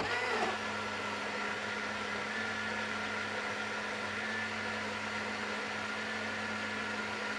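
Countertop jug blender motor starting up, its pitch rising over the first half second, then running steadily as it blends beetroot, berries and banana with water into a smoothie.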